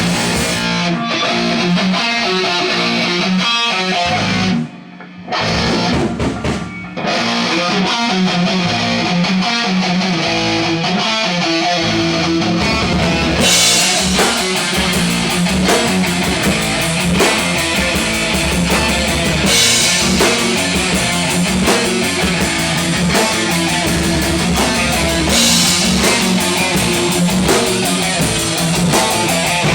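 Heavy metal band jamming live: electric guitar riffing with a drum kit. The playing breaks off briefly about five seconds in, and the sound grows fuller and brighter from about 13 seconds in.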